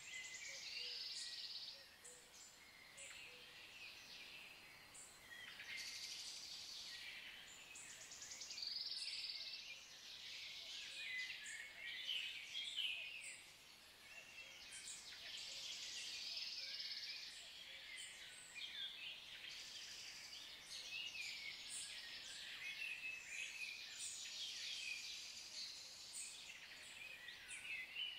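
Woodland birds singing and calling, several at once: a continuous chorus of short, high-pitched chirps and song phrases over faint background hiss.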